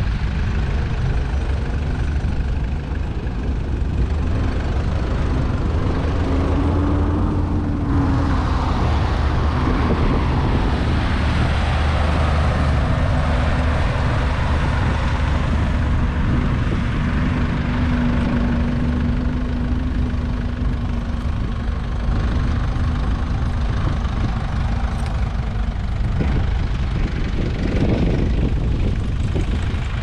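A tractor engine idling steadily, a low rumble that runs on without a break.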